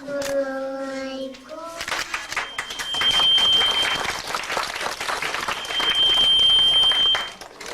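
Children's voices hold one last sung note for about a second and a half. Then a roomful of people applauds for about five seconds, fading near the end.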